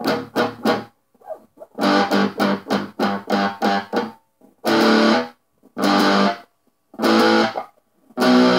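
Squier Stratocaster electric guitar in drop D, played with a pick. It strums quick, choppy chords at first, then from about halfway plays four held chords, each stopped short with a brief silence between.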